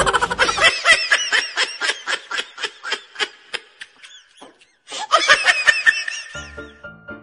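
A person laughing in quick repeated 'ha-ha' bursts, about five a second. The laughter breaks off briefly past the middle, then resumes. Music comes in near the end.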